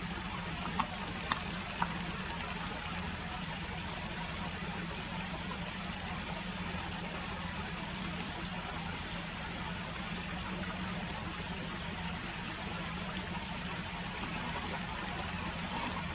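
Car engine idling steadily, heard from inside the car, with a thin constant high whine over it. A few light clicks come in the first two seconds.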